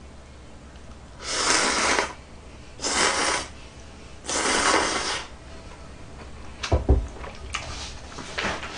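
Three loud slurps of ramen noodles, each under a second and about a second and a half apart, then a single dull thump about seven seconds in.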